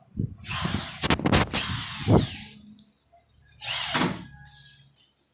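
A power tool working the wood of a door in two bursts: a longer one of about a second and a half, then a short one about four seconds in.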